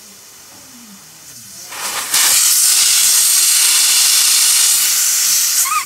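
Air hissing loudly and steadily at a car tyre's valve stem as a mechanic works it, starting about two seconds in and cutting off sharply near the end. The tyre had gone flat from a fault inside the valve.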